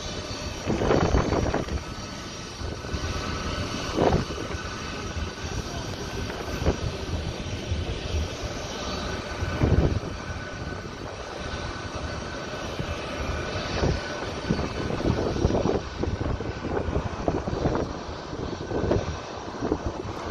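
Steady high whine of jet turbines at idle over a rushing noise bed, with louder swells now and then, one of them a vehicle passing about ten seconds in.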